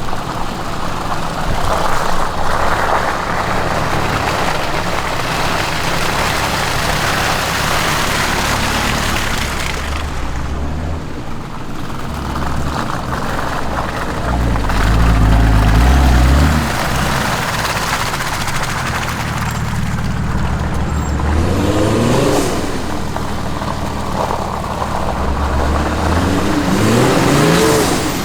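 A 4x4 engine pulling the vehicle over an off-road track, with a louder surge about halfway through and two rising revs near the end.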